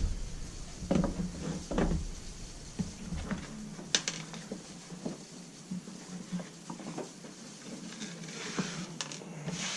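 Hand tools and metal hardware being handled at a workbench: irregular light clicks and knocks, with a sharper click about four seconds in.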